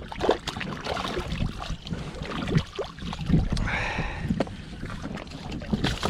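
Sea water sloshing and splashing, with wind on the microphone and scattered short knocks and clicks.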